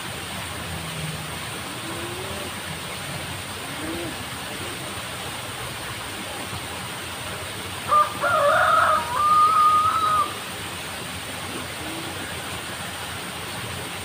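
A rooster crowing once, about two seconds long, with a choppy start and a long held final note, over a steady background hiss.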